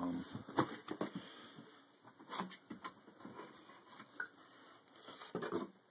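Cardboard box and its packaging being opened and handled by hand: irregular rustling, scraping and light clicks.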